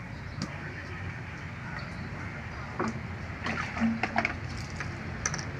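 A steady low hum, with a few small knocks and splashes from hands working in a plastic basin of water while a dog is bathed, the loudest cluster about two thirds of the way in.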